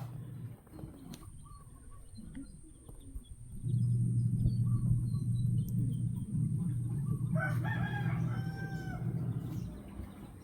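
A rooster crows once, about seven seconds in, a held call of about a second and a half. Under it runs a steady low hum that starts about four seconds in and stops near the end, with a few faint high chirps from small birds or chicks.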